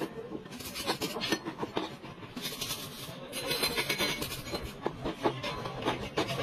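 A metal hand tool scraping and clinking against the sheet metal of a Toyota Corolla's trunk lid, in irregular short strokes.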